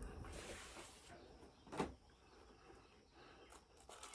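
Quiet background with small handling sounds: one soft knock a little under two seconds in, and a few small clicks near the end as a durian is pulled apart by hand.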